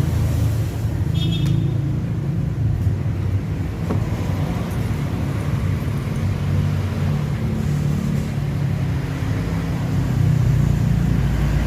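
A steady low rumble, like an engine running nearby, with a brief high chirp about a second in and a faint click about four seconds in.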